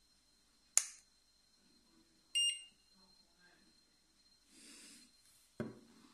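Handheld infrared thermometer: a sharp click about a second in, then one short high beep as it takes a reading. A dull knock from handling the unit comes near the end.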